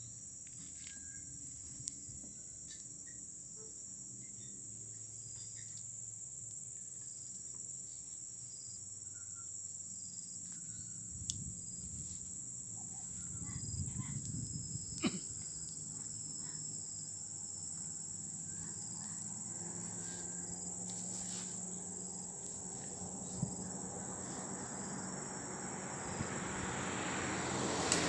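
Steady high-pitched drone of insects in the roadside vegetation. Near the end a vehicle approaches, its road noise growing louder.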